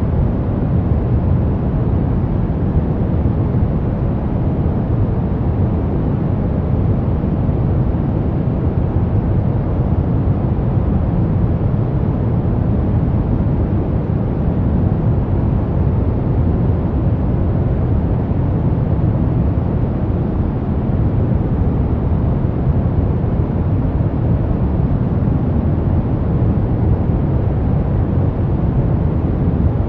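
Brown noise: a steady, unchanging deep rumbling hiss, strongest in the low end and falling away toward the highs.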